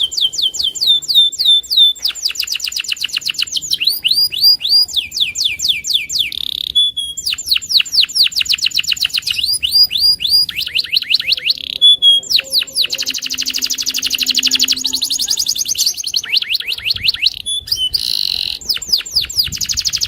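Domestic canary singing a loud, long, nearly unbroken song. It is made of fast trills: runs of rapidly repeated notes that switch to a new note type every second or two, with only brief breaks.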